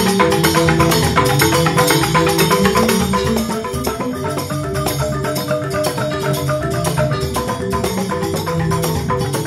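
Balinese joged bumbung gamelan playing: bamboo xylophones (grantang) struck in fast, dense interlocking strokes, with percussion.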